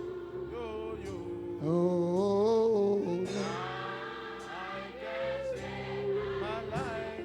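Gospel worship music: a male lead singing a long wavering "oh" with vibrato over held choir and keyboard chords, swelling loudest about two seconds in.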